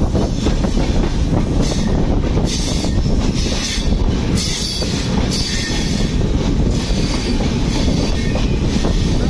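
Train running along the track, heard from on board at an open door: a steady rumble of wheels on rail, with repeated high hissing and squealing from the wheels.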